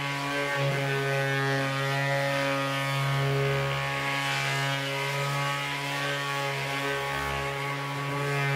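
Electric orbital sander running steadily with a constant hum, sanding the old coating off a cabinet top with 120-grit paper.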